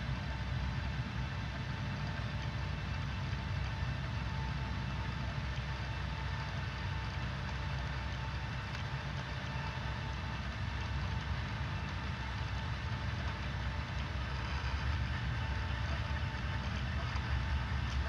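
Steady low mechanical rumble with a faint steady hum from a six-axis motion simulator platform, its electric linear actuators driving the cabin through slow movements.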